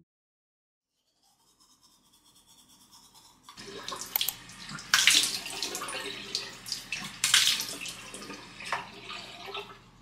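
Water running from a bathroom tap into a ceramic washbasin, splashing as hands are rinsed under the stream. It starts about three and a half seconds in and stops just before the end.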